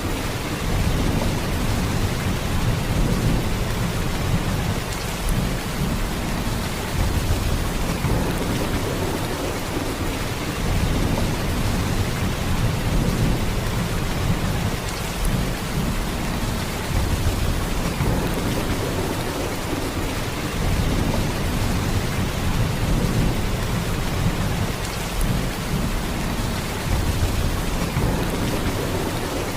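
Heavy rain pouring steadily: a dense, even hiss with a strong low rumble underneath.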